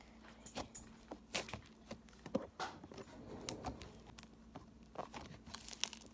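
Fluffy black slime being pressed and kneaded by fingertips, giving many small irregular clicks and pops.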